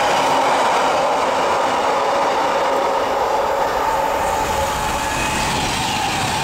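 Electric passenger trains passing at speed: a Class 350 electric multiple unit, then a Class 390 Pendolino. A steady loud rush of wheels on rail with a steady high hum over it, shifting slightly about two-thirds of the way through.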